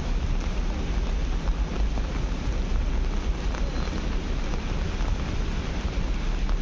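Steady rain on a city street, with a low rumble of wind on the microphone.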